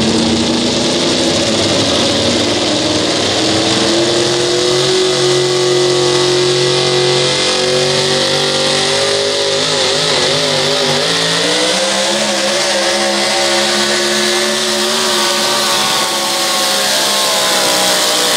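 A four-wheel-drive pulling truck's supercharged engine runs at full throttle through a pull. Its pitch climbs over the first few seconds and then holds high. It wobbles briefly about ten seconds in, climbs again, and starts to fall right at the end as the pull finishes.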